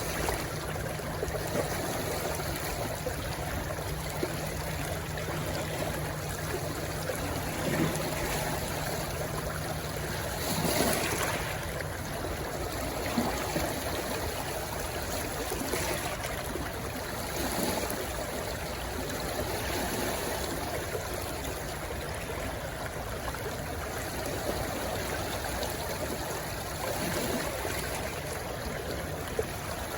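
A small stream rushing steadily as it flows into the sea, with a few brief louder swells of water.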